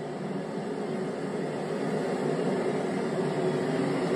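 Steady rushing roar of strong wind, without gusts or breaks, growing somewhat louder toward the end.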